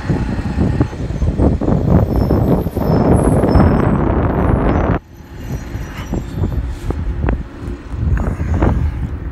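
Wind buffeting the microphone of a moving electric bike, mixed with street traffic noise. The buffeting drops off abruptly about halfway through, leaving quieter gusts.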